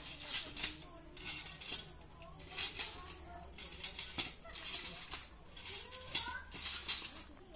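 Metal coconut tree climbing device clanking as the climber works its frames up the trunk: irregular sharp metallic clinks and rattles, about two a second.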